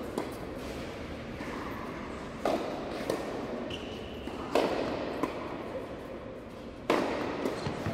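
Tennis balls struck hard by rackets in a doubles rally, a few sharp pops about two seconds apart, each echoing in a large indoor hall. The loudest hits come about halfway through and near the end.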